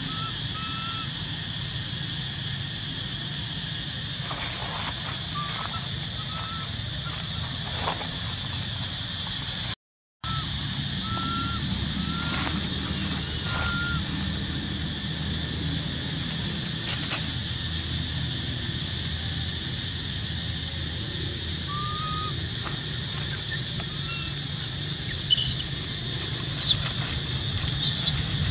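Outdoor ambience of a steady insect drone over a low hum, with short, slightly rising chirp calls every second or so. The sound drops out completely for a moment about a third of the way in, and near the end come a few sharper high squeaks and crackles.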